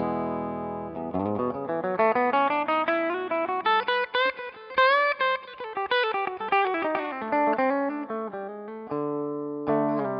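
Electric guitar, a Gibson SG '61 Reissue with Righteous Sound R-Top humbuckers, played through a One Control Honey Bee overdrive pedal into a Marshall Bluesbreaker amp. A held chord gives way to a quick single-note lead run that climbs and then comes back down, and a new chord is struck near the end and left ringing.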